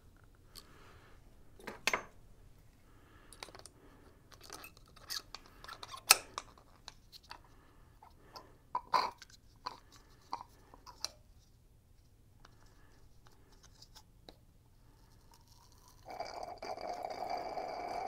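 Scattered small clicks and knocks from hands working the top of an upright motorcycle fork tube and a fork-oil level tool. About two seconds before the end comes a steady sucking sound with a held tone as the suction tool draws excess fork oil out to set the oil level.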